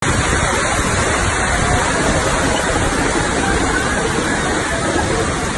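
Floodwater rushing down a street in a fast, churning torrent, a loud and steady wash of water noise.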